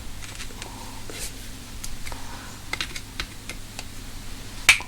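Light, irregular clicks and taps of small parts and hand tools being handled and fitted during motorcycle reassembly, with one sharper click near the end.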